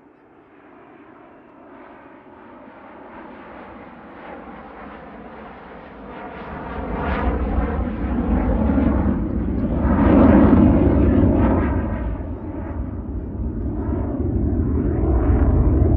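BAE Hawk jet trainers, powered by Adour turbofans, flying a display pass. The jet noise builds from faint to loud, peaks about ten seconds in, eases, and swells again near the end, with the sweeping, phasing whoosh of aircraft passing overhead.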